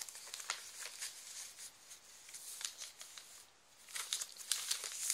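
Paper and card rustling and crinkling as journal pages are turned and handled, in short scrapes and crackles, busier near the end.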